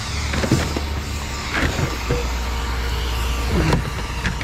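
A vehicle engine runs with a steady low rumble, with a few short metallic squeaks and scrapes from scrap being handled.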